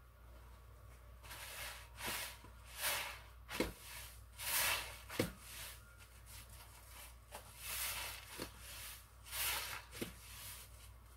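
Thick soap-soaked sponge being squeezed and wrung by hand over a sink of suds: a run of wet squelches with water gushing out, about one every half second to second, with a few sharp squishy pops among them and a short pause midway.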